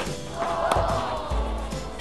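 Background music with a whoosh sound effect that swells about half a second in and sweeps downward in pitch.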